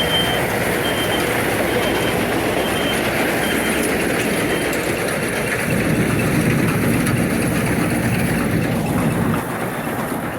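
A heavy vehicle's engine running, with its reversing alarm beeping about twice a second for the first few seconds before it stops. The engine noise continues steadily and eases off a little near the end.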